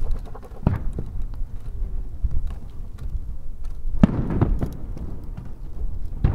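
Aerial firework shells bursting: a couple of lighter bangs in the first second, a loud boom about four seconds in with a rumbling tail, and another sharp bang near the end.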